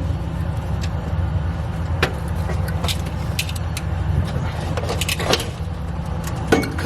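Scattered metallic clinks and knocks as the old exhaust pipe is worked loose from under the car, over a steady low rumble.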